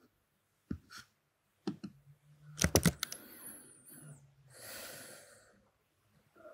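A few quiet clicks at a computer, with a louder cluster of sharp clicks about two and a half seconds in, then a soft breath-like hiss.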